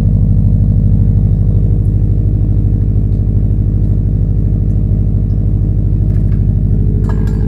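Subaru Impreza GB270's flat-four engine idling steadily through a custom 3-inch exhaust, with an even low pulsing exhaust note.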